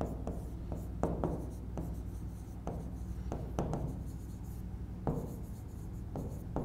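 Stylus writing on a pen tablet: irregular light taps and short scratching strokes as words are handwritten, over a low steady hum.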